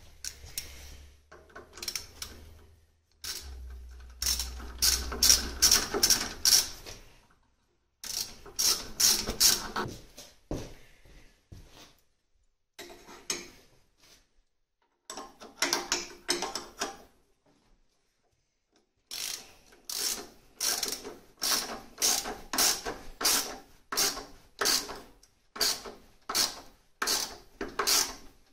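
Hand ratchet wrench clicking in repeated strokes, fitting bolts on a VW Type 1 engine. The strokes come in bursts with pauses between them, then run steadily at about one and a half strokes a second over the last ten seconds.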